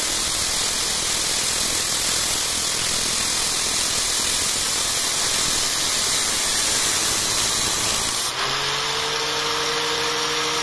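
Nagasaki angle grinder with a small cutting disc running while a steel rod, spun in an electric drill, is ground against the disc: a steady, hissing grind. About eight seconds in the grinding stops and the motors are left running free with a steady whine.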